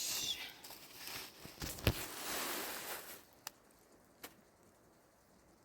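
Rustling handling noise with a sharp knock about two seconds in, followed by two short clicks.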